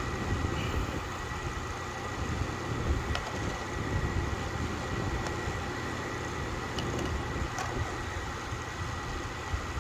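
Steady low background rumble with a thin, constant high-pitched whine, and a few faint light clicks scattered through it.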